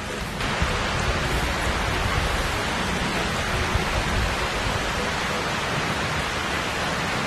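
Steady heavy rain, an even hiss that comes in abruptly about half a second in.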